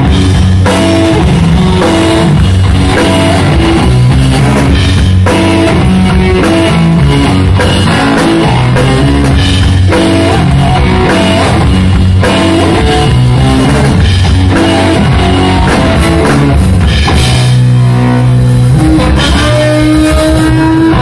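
Live rock band playing loud through stage amplifiers: electric guitar and bass guitar over a drum kit, with notes gliding upward near the end.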